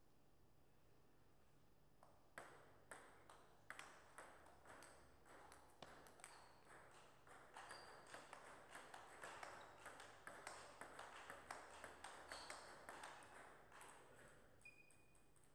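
Faint rally of a table tennis ball, sharp clicks as it hits the table and the rubber-covered bats: a few separate hits at first, then a quicker run of back-and-forth clicks through the middle that stops near the end. A brief high squeak near the end.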